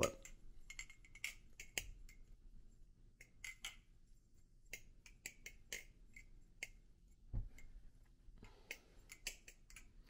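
Hazetac Jigsaw aluminium balisong trainer being flipped: faint, irregular clicks and clacks of the handles and blade swinging around the pivots and meeting, several a second, some with a short metallic ring. One duller knock comes about seven seconds in.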